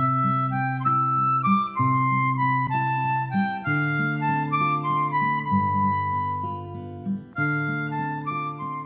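Background music: a reedy, harmonica-like melody over steady held chords, with a short break about seven seconds in.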